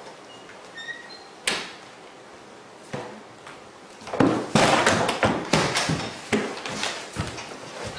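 A wooden interior door bangs once about a second and a half in. From about four seconds in comes a louder, rapid clatter of knocks and thumps, and the sound cuts off sharply at the end.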